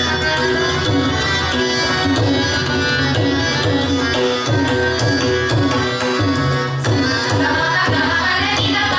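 Odissi classical ensemble in an instrumental passage. Mardala barrel-drum strokes keep the rhythm while a harmonium holds sustained notes and small manjira cymbals tick in time.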